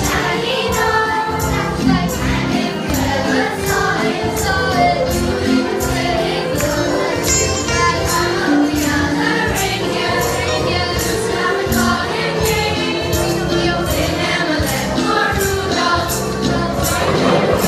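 Children's choir singing a Christmas carol into microphones over music with a steady percussive beat about twice a second.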